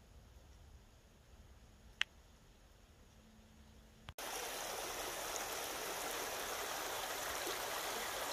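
Creek water flowing, a steady rushing that starts abruptly about halfway through. Before it there is only faint quiet with a single sharp click.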